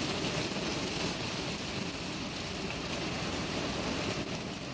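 Hailstones pelting down steadily, a dense, even rush of countless small impacts.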